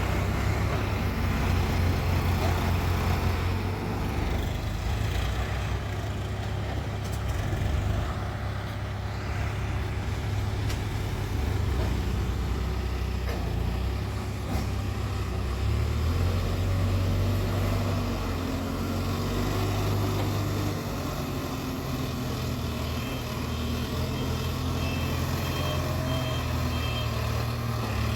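Case 851EX backhoe loader's diesel engine running, its low drone rising and easing several times as the load changes. Near the end a reversing alarm beeps in a series of short, evenly spaced tones.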